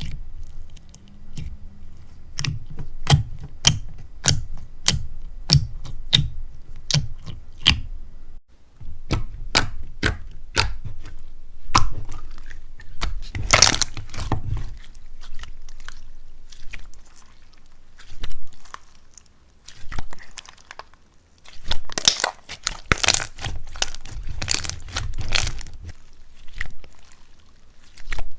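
Slime being pressed and poked by hand, giving sharp pops and crackles. They come about two a second at first, with denser crunchy crackling in longer stretches later.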